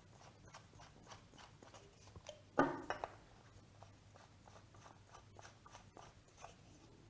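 Faint clicks and scrapes of exhaust silencers being screwed by hand into an air-operated diaphragm pump's air valve, with one louder clunk about two and a half seconds in.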